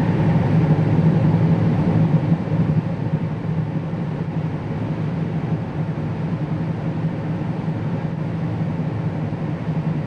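Combine harvester running under load, heard from inside its cab while it unloads corn through its auger into a grain cart: a steady low engine and machinery drone, a little louder for the first couple of seconds.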